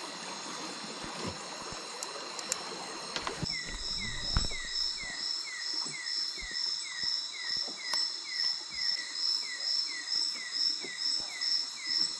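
Night insect chorus with steady high-pitched trilling. About three and a half seconds in, a louder rhythmic call joins: short falling chirps repeating two or three times a second. A few soft knocks sound around the moment it starts.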